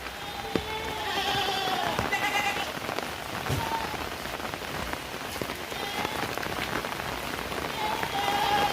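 Heavy rain falling steadily on the ground and foliage, with scattered drops ticking close by. Short calls with a wavering pitch cut through the rain a few times, about a second in, again shortly after, and near the end.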